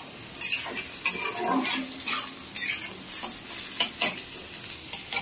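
Carrots, capsicum and onion stir-frying in hot oil in a karahi, sizzling, with a spatula scraping and stirring through them in repeated irregular strokes.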